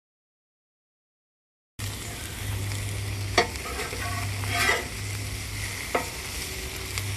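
Food sizzling as it fries in a pan, a steady hiss with a few sharp clicks. It starts after nearly two seconds of silence.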